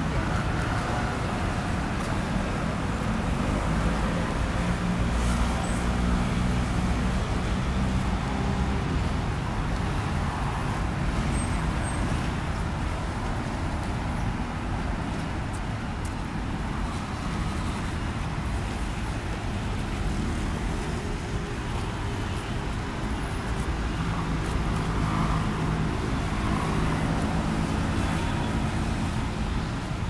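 Steady road traffic at a busy city intersection: cars and scooters passing. A low engine hum swells in the first few seconds and again near the end.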